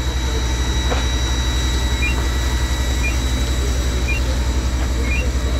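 An engine running steadily with a rapid low throb and a thin high whine over it. A short two-note electronic beep repeats about once a second, starting about two seconds in.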